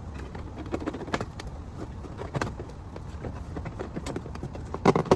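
Scattered light knocks and clatter of animatronic parts and packaging being handled, over a steady low rumble; a voice starts near the end.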